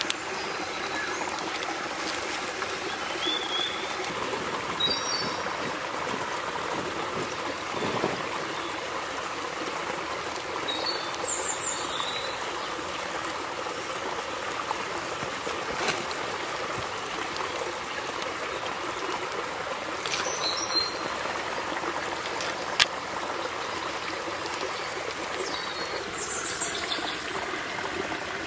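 Steady sound of running water, like a small stream, with short bird chirps now and then. A single sharp click about three-quarters of the way in.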